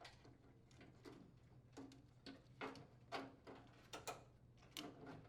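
Faint, scattered plastic clicks and light knocks, about a dozen in all, from a microwave's plastic latch switch holder and its wiring being handled.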